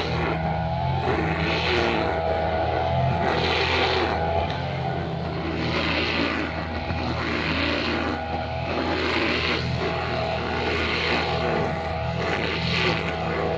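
Two-stroke brushcutter engine running steadily while cutting grass, with a swish rising and falling about every one and a half to two seconds as the head sweeps from side to side.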